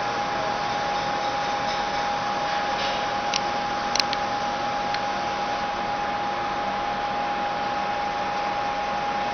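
CNC vertical milling machine cutting a metal block under flood coolant: a steady hiss of spindle and coolant spray with a constant high whine. Two sharp ticks come at about three and a half and four seconds in.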